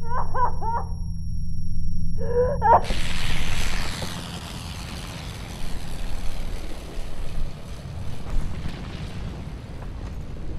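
A woman wailing in anguished cries. About three seconds in, a sudden loud explosion cuts in and its roar dies away over several seconds into a low rumble with scattered thuds.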